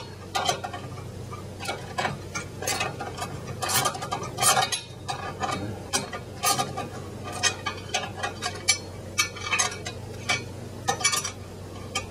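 Irregular metallic clicks and clinks of a wrench working bolts loose on the steel clamp of a solar tracker mount, over a low steady hum.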